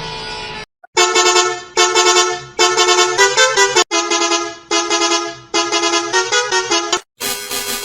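A bus's musical horn plays a tune in loud, quick repeated notes grouped in phrases about a second long, with the pitch stepping between notes. Before it, another horn sound cuts off in the first moment, and a new steady horn tone starts near the end.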